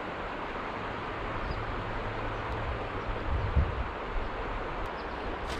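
Steady rush of river water with a low wind rumble on the microphone and a soft low bump a little past halfway.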